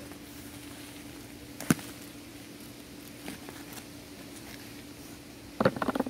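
Gloved hands digging and crumbling potting soil in a fabric grow bag: soft scattered rustles and ticks, one sharp click about two seconds in, and a short burst of crackly rustling near the end. A faint steady hum runs underneath.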